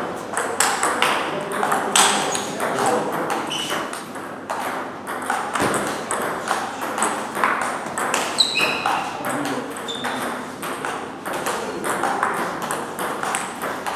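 Table tennis rally: the ball clicking off the table and the bats in quick succession, one bat faced with Sauer & Tröger Schmerz OX long-pimple rubber. Another rally on a neighbouring table adds its own clicks.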